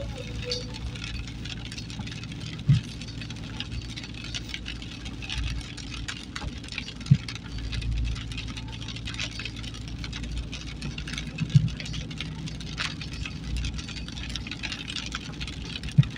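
A vehicle's engine running with steady road rumble, broken by four short thumps spaced about four to five seconds apart.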